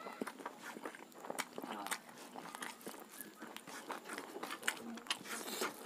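Close-miked chewing and wet mouth smacks of a mouthful of rice and roti, a quick string of short clicks, with fingers mixing food on the plate.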